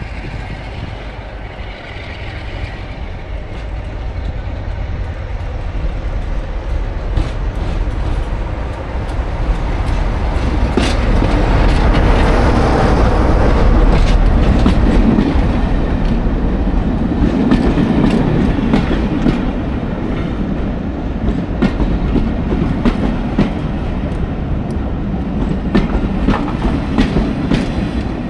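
Diesel train passing: a low rumble that builds to its loudest about halfway through, with the wheels clicking over rail joints as the vehicles go by, the clicks coming thickest in the second half.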